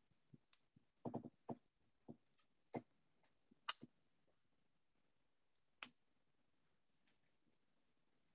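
Mostly near silence, broken by faint scattered clicks and light scrapes from a small knife and fingers pushing the glued end of a rattan strip under the wrap on a yumi (Japanese bow). The sharpest click comes about two thirds of the way in.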